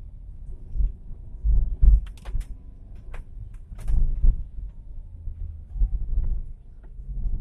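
Car moving along a road, heard from inside the cabin: a low, uneven rumble with swells and thuds, and a few short sharp clicks and rattles.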